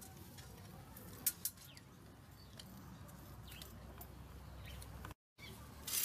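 Faint outdoor background with a few soft bird chirps and scattered light clicks, one sharp click about a second in. Right at the end a bow saw starts cutting into a wooden pole.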